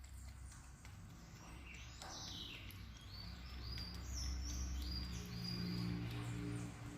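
Small birds chirping in short, high calls, over a low steady hum.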